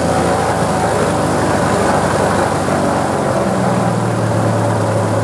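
Cessna 182's piston engine and propeller running at low taxi power, heard from inside the cabin: a steady, loud drone whose note steps up slightly about three and a half seconds in as power is added.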